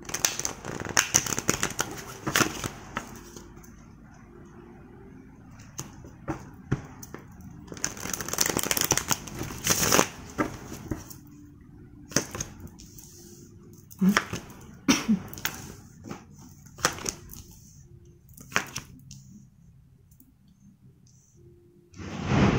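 A deck of tarot cards being riffle-shuffled and bridged, with crackling bursts of flicking cards about a second in and again around nine seconds in. Scattered sharp clicks follow as the cards are handled and dealt onto the table. Near the end, loud thunder breaks in suddenly.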